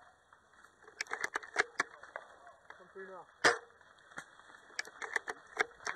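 Airsoft guns firing: irregular sharp snaps, a quick string of shots about a second in, one louder shot partway through, and another scattered string near the end.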